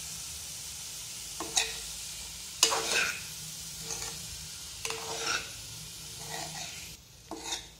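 Metal spatula stirring and scraping paneer and vegetables around a stainless-steel kadhai, in separate strokes about a second apart, over a steady sizzle of frying masala. The sizzle dies down near the end.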